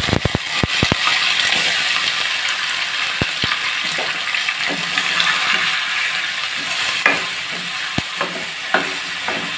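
Ground masala paste sizzling as it hits hot mustard oil and whole spices in a steel kadai, a steady frying hiss. It opens with a quick run of clinks as the paste is scraped from a steel bowl. A steel spatula then stirs it, knocking on the pan a few times.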